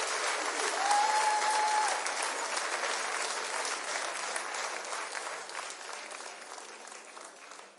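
Audience applauding, with one long whistle from the crowd about a second in; the applause fades out near the end.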